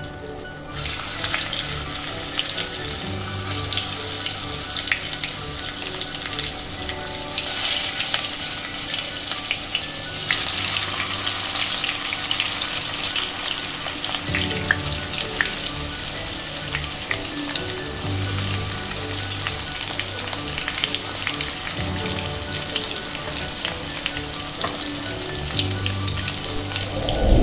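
Pieces of besan gatte (gram-flour dumplings) deep-frying in hot oil in a kadhai. A steady sizzle rises about a second in as the pieces go into the oil.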